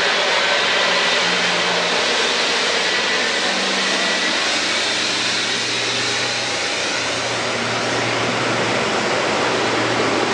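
Jet airliner engines running, a loud, steady rush of noise with a faint low hum underneath.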